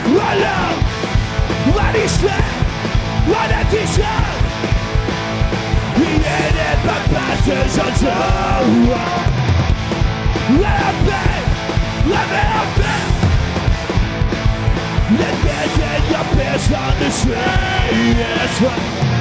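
Punk rock band playing live, a singer yelling the vocals over a fast drum beat.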